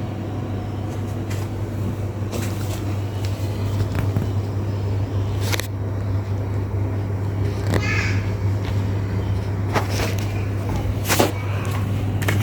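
COSA RF/4S-YH ceiling fan running, its motor giving a steady low hum. Several short clicks and knocks, and a brief wavering higher sound about eight seconds in, sound over the hum.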